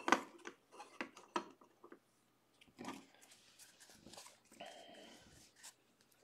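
Faint handling of a stack of baseball cards by hand: short clicks and rustles as cards are slid off the pile and sorted, with a brief squeak about four and a half seconds in.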